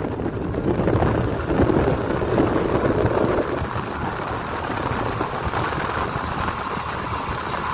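Heavy vehicle engine running with a loud, rough rumbling noise.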